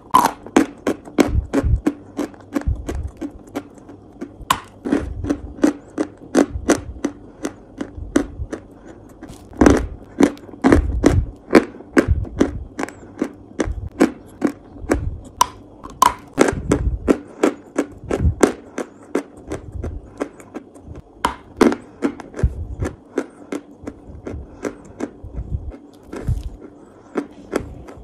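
Close-miked crunching of dry white chalk (whitewash lumps) being bitten and chewed. It comes as dense runs of sharp, crisp cracks over dull low thuds from the jaw, in clusters with short pauses between them.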